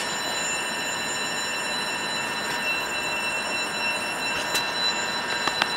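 X60 commuter electric train standing at a platform, its electrical equipment and fans giving a steady hum with several high whining tones. There is a brief swell about four and a half seconds in and two short sharp clicks near the end.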